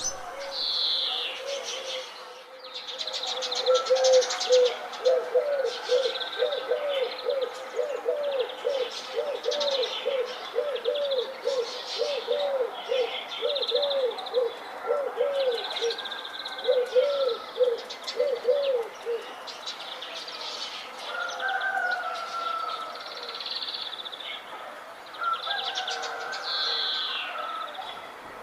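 Morning birdsong: several small birds chirping and warbling at a high pitch throughout, with a lower call repeated about twice a second from a few seconds in until about two-thirds of the way through.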